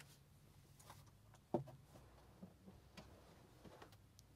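Near silence: faint room tone with a low hum and a few scattered soft clicks, one sharper click about one and a half seconds in.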